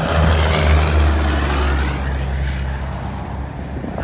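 Two semi-trucks pulling end-dump trailers passing close by at highway speed. The engine drone and tyre and wind noise swell to a peak about a second in, then fade as they go by.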